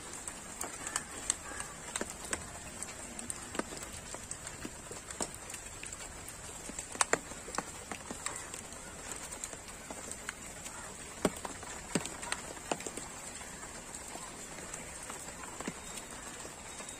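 Rain falling and dripping: a steady patter with many irregular sharp drop impacts and a few louder drips, over a constant high-pitched hiss.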